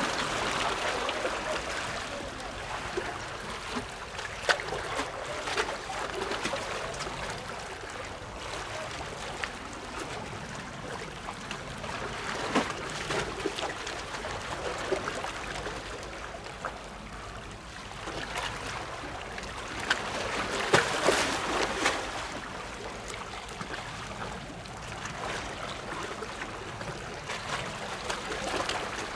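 Water lapping and splashing at the shoreline, swelling louder a few times with small splashy clicks, over a steady low rumble.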